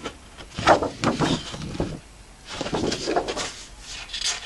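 Sheets of patterned scrapbooking paper being handled and turned over: stiff paper rustling and sliding in a few short bursts, about a second in, around three seconds in, and once more near the end.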